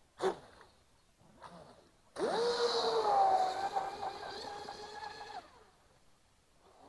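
Joysway Mad Flow F1 V3 RC speedboat's brushless motor whining under throttle with a hiss of water, starting suddenly about two seconds in. Its pitch rises briefly, holds steady and then stops about three seconds later. A short click comes just before.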